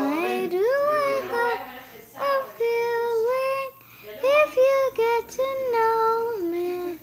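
A young girl singing on her own without accompaniment, holding notes and sliding between them in short phrases with brief pauses.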